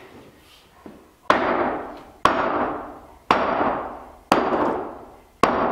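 A maul striking a mortared concrete block wall five times, about one blow a second, each impact ringing out briefly. The blows are knocking the concrete blocks loose from the mortar that holds them to the floor.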